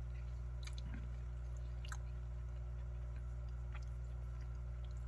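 A person chewing food with a few faint mouth clicks, over a steady low hum.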